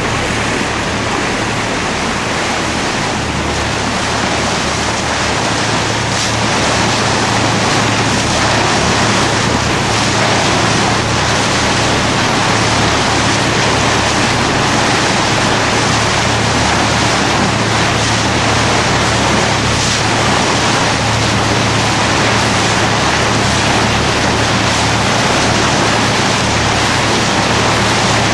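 A boat's engine running steadily under way, a low even hum, under loud rushing wind and water noise.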